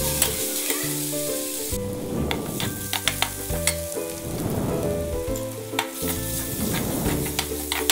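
Sliced onions and curry leaves sizzling as they fry in oil in an aluminium kadai, stirred with a steel slotted spoon that clicks and scrapes against the pan.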